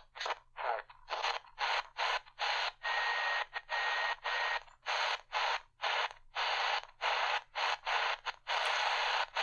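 Tecsun PL-380 portable radio being tuned quickly up the medium-wave band between stations. Its speaker gives short bursts of static hiss, about two to three a second, each cut off by a brief silence as the tuning steps to the next frequency.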